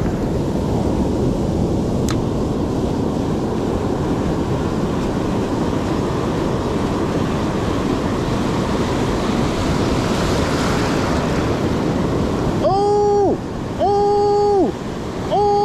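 Ocean surf washing onto a beach with wind on the microphone, a steady rush that swells to a louder hiss about ten seconds in. Near the end, three held pitched notes of about a second each.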